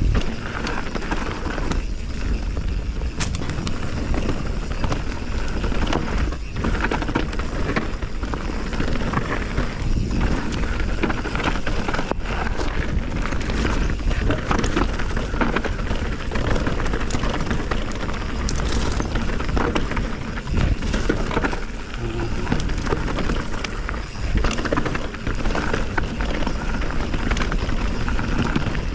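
Canyon Spectral 29 mountain bike ridden down a dirt trail, heard from a chest-mounted camera: a steady rush of wind on the microphone and tyre noise over dirt and leaves, with frequent clicks and rattles from the bike.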